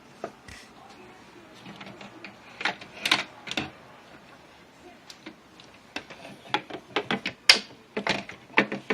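Irregular clicks and knocks of sewing machine accessory parts being handled and fitted into place. They come more often in the second half.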